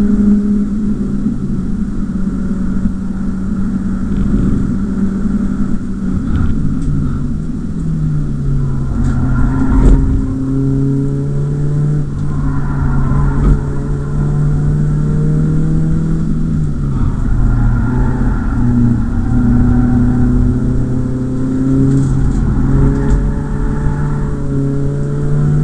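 BMW E36 318is four-cylinder engine heard from inside the cabin on track. It holds high revs at first, drops off about six seconds in, then climbs and falls several times as it is driven through gears and corners. There is a brief thump about ten seconds in.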